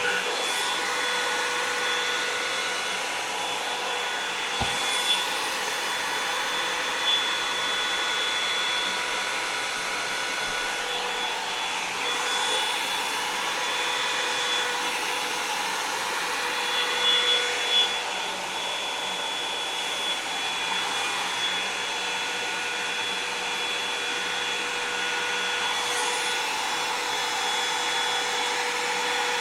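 Revlon One-Step Hair Dryer and Volumizer hot-air brush running steadily: a fan whine over rushing air, with a few small bumps as it is handled.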